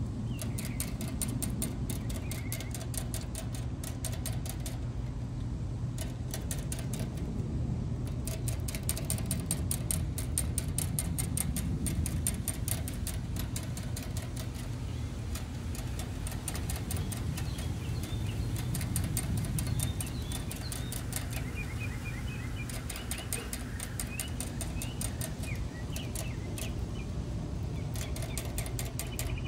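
Rabbit licking the steel sipper tube of a gravity-fed water bottle: a rapid, steady run of small metallic clicks as its tongue works the spout's ball valve, pausing briefly a few times, over a steady low hum.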